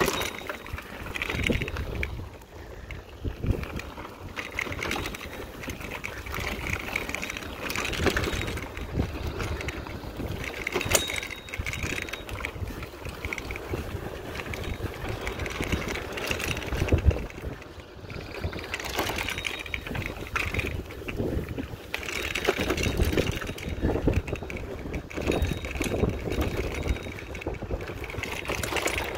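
Mountain bike rolling fast over a dirt forest trail: knobby tyres crunching on the dirt, the bike rattling over bumps, and wind rumbling on the camera microphone. A single sharp clack about eleven seconds in.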